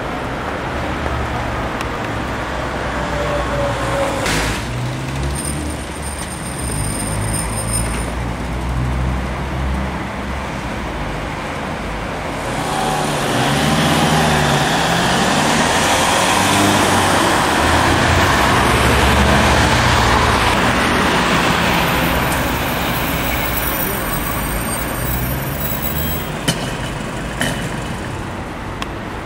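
City road traffic running steadily, with a vehicle passing louder through the middle and falling away again. Indistinct voices and a couple of sharp clicks near the end.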